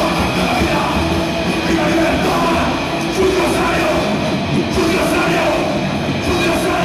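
Live Oi! punk band playing loud and without a break: electric guitars and a drum kit.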